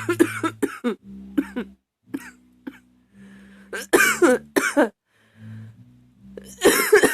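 A woman coughing over and over in a fit: a quick run of coughs at the start, a few single coughs, another cluster about four seconds in, and a longer cough near the end.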